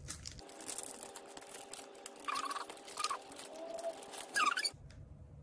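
Foil sachet of a hydrogel mask crinkling and rustling as it is cut and opened.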